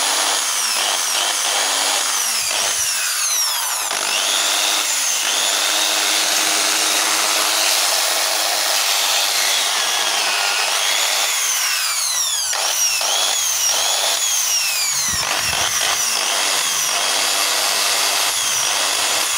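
Bosch Super Hobby 400 W electric drill running continuously on a test after new non-original carbon brushes were fitted, its motor whine rising and falling in pitch again and again as the speed changes. It runs strong, with good power.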